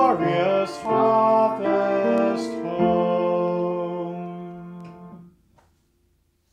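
Upright piano accompanying a man singing. The music ends on a held chord that fades out about five seconds in, followed by near silence.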